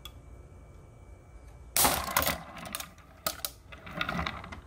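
20 lb Yo-Zuri Super Braid 8-strand fishing line breaking under load in a no-knot breaking-strength test: one sudden loud snap a little under two seconds in, the loudest sound here. It is followed by scattered clicks and a short metallic rattle as the released hanging scale and its clip swing and are handled.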